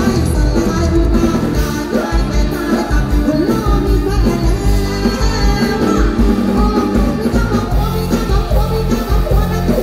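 Live band music with a woman singing lead into a microphone, amplified over a steady pulsing bass and drum beat.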